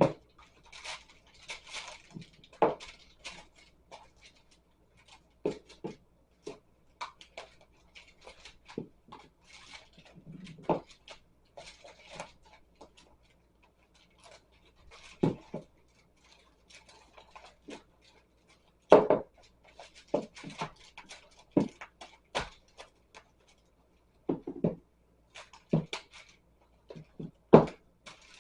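Plastic wrap being pulled off the roll and pressed around a foil-covered pan, crinkling and rustling in irregular spurts, with sharp clicks and knocks, the loudest about two-thirds of the way through and near the end.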